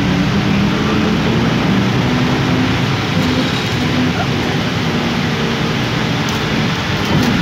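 A vehicle driving on a rain-soaked road in heavy rain: a steady rush of rain and tyre spray over a low engine hum.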